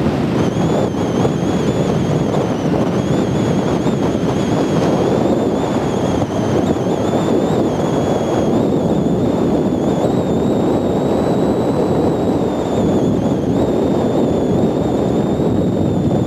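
Wind buffeting the camcorder microphone: a loud, steady rumble, with a faint thin wavering whine above it.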